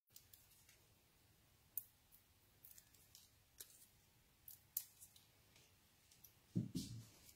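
Faint paper-handling sounds: small sharp clicks and ticks as fingers work a narrow cardstock strip with adhesive pieces on its back, with a soft low bump near the end.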